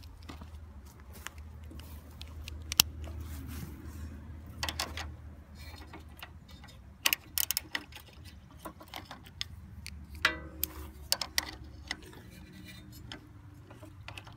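Hand tools clicking and clinking against metal while unbolting a riding mower's starter: irregular ticks with one sharper knock about three seconds in, over a low steady hum that stops about two seconds before the end.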